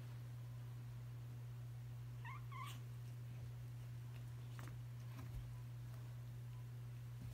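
Cats play fighting: one short, wavering cat cry a little over two seconds in, then a few faint scuffling ticks, over a steady low hum.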